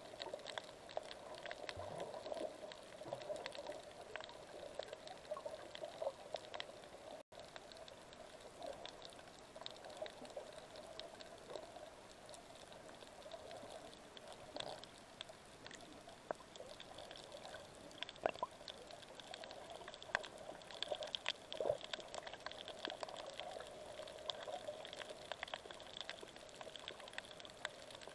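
Faint underwater ambience on a coral reef: a muffled, steady water noise with many small scattered clicks and crackles.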